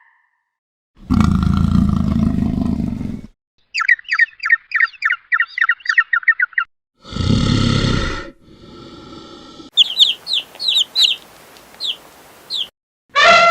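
A run of separate animal calls: a loud, low pitched call about a second in, then a fast string of bird chirps, another short low call, and a slower series of high bird chirps near the end.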